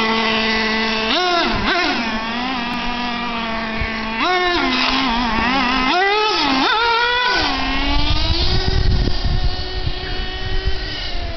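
Traxxas T-Maxx RC truck's 3.3 two-stroke nitro engine buzzing at idle, then revved in several quick bursts that rise and fall in pitch. From about two thirds of the way in it holds a steady high speed as the truck drives away.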